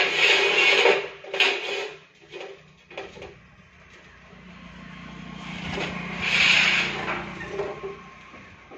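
Steel bars clanking and scraping as they are handled and slid across the metal base of a chop saw: a sharp clank at the start, another about a second and a half in, and a longer scraping rush about two-thirds of the way through.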